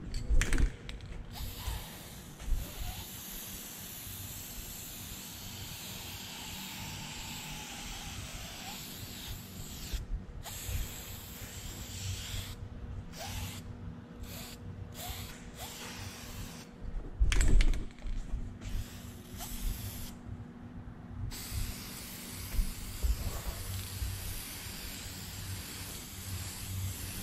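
Aerosol spray can of high-temperature gloss clear coat hissing in long sprays. Between the sprays there are several short breaks, a longer one near the two-thirds mark, and a louder knock a little past the middle.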